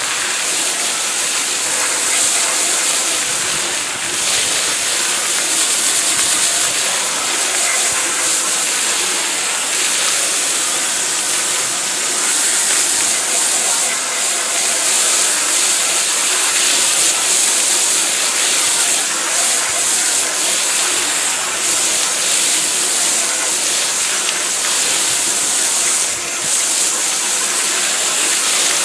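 Water from a garden hose spray nozzle hitting a grooved rubber boat swim platform: a steady hiss of spray with splatter as degreaser is rinsed out of the grooves.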